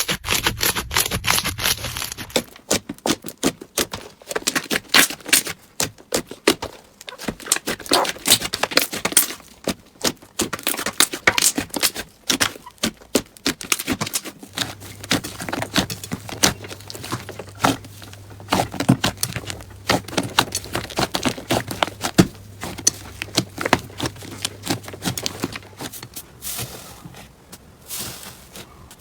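Slime being squeezed, poked and stretched by hand, giving a rapid, irregular run of small clicks, pops and crackles. The first two seconds are denser and more crinkly.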